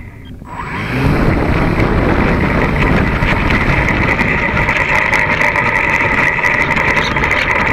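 ParkZone Stinson RC plane's electric motor and propeller, close to the microphone: the motor dips low at the start, spools back up within the first second, then runs steady with a whining buzz.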